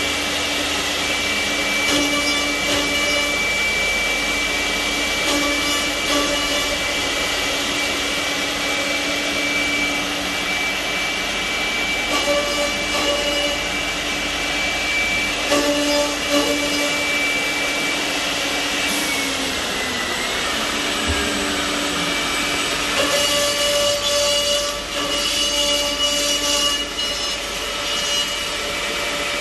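A CNC mortising machine running and cutting wood: a steady machine noise with a high motor whine. About two-thirds of the way through the whine falls in pitch, and new hums start a little later.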